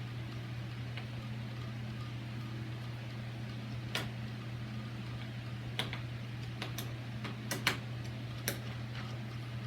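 Light clicks and taps of metal deadbolt parts and screws being handled and fitted, scattered through the second half, over a steady low hum.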